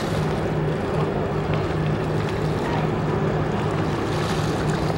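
Twin diesel engines of PCF-816, a Vietnam-era Swift boat, running under way: a steady low drone that holds even.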